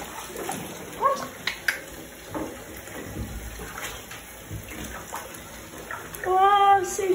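Bath tap running into a bathtub, a steady rush of water, with a few short knocks about a second in. Near the end come two held, high-pitched voiced calls.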